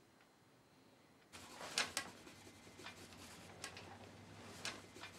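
Near silence, then from about a second and a half in a faint room hum with a handful of soft, short rustles and clicks, about six over four seconds.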